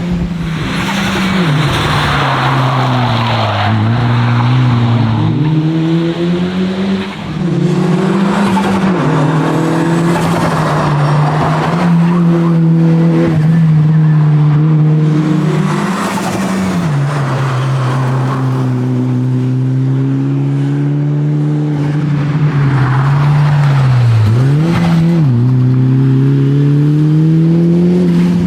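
Mitsubishi Lancer Evolution VIII's turbocharged four-cylinder engine at racing speed, its note climbing and dropping repeatedly as it goes through the gears, with several quick dips and rises in pitch.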